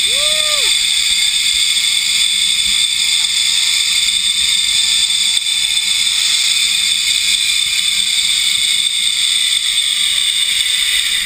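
Zipline trolley pulleys running along a steel cable: a loud, steady whirring hiss, with a faint tone that slowly falls in pitch and drops faster near the end as the trolley slows toward the landing platform.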